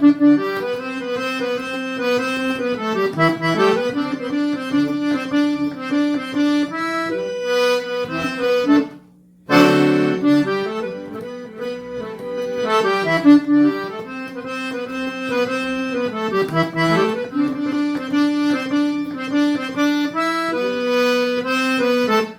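Accordion playing an instrumental melody over a steady held bass note, breaking off for a moment about nine seconds in and then taking the phrase up again.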